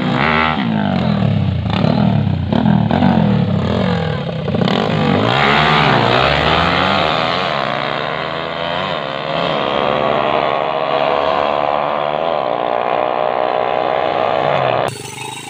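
Two 150cc-class motorcycles, a Rusi Flash 150 among them, drag racing. Their engines rev in quick throttle blips at the start line, then run hard as they accelerate away, the pitch rising and then holding. The sound cuts off abruptly near the end.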